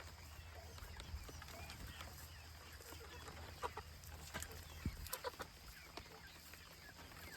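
Chickens clucking, with a cluster of short clucks about halfway through over a low, steady rumble.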